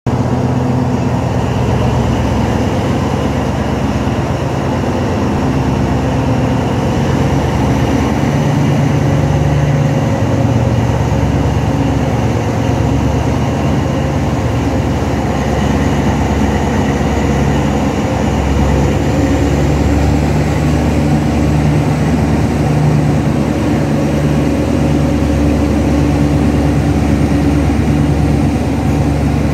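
Alsthom diesel locomotive No. 4218's engine working hard under throttle as the locomotive accelerates along the line, heard close from the cab window. A faint high whine rises slightly about two-thirds of the way through.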